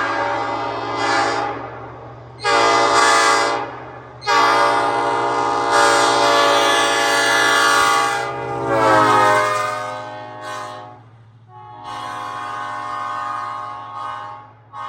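Old cast Nathan Airchime P5 five-chime train horn blown on air in a series of short and long blasts. The longest, about four seconds, sags in pitch as it trails off, and the last few blasts are softer.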